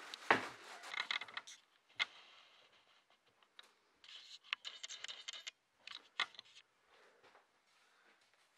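A bucket of plaster mix set down on the floor with a knock, then scattered scrapes and scratches, with a few small clicks, as a wooden stick works the mix.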